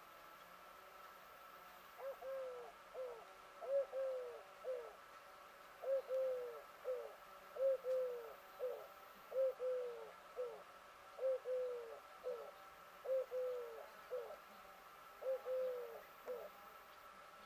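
A dove cooing: a three-note coo repeated about eight times, roughly every two seconds, starting about two seconds in.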